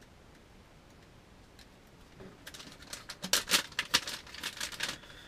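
Plastic packaging of a pack of soft-plastic lizard baits being handled and opened: a quick run of sharp crinkles and clicks starting about halfway in.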